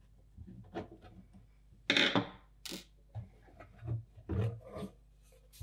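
Sheet-metal lid and screwdriver handled on an audio unit's case: small clicks, then loud scrapes about two seconds in and a cluster of knocks and scrapes near the end as the lid is worked loose and lifted off.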